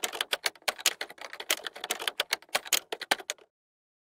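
Typing sound effect: rapid, irregular key clacks, several a second, stopping abruptly about three and a half seconds in.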